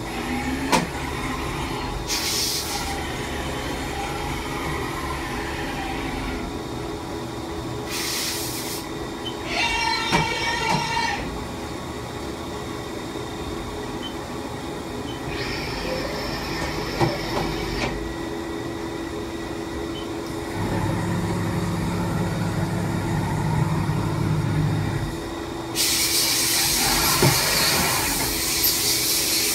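Haas VF-2 vertical machining center powered up, giving a steady hum. Several short hisses come and go, a lower drone runs for a few seconds past the middle, and a loud steady hiss takes over near the end.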